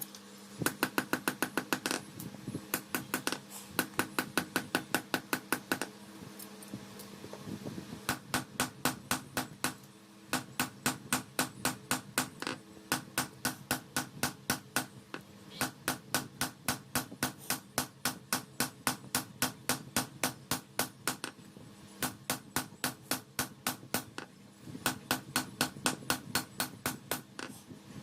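Blacksmith's hammer striking steel on an anvil while forging a khukuri blade, in fast runs of about five blows a second broken by short pauses.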